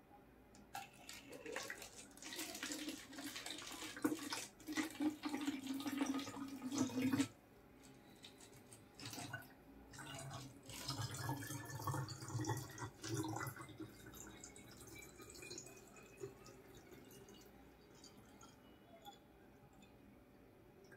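Water poured from a plastic mug into a plastic bottle, splashing as it fills. The pour stops abruptly about seven seconds in, then a second, quieter pour follows, with a faint tone rising in pitch as the bottle fills.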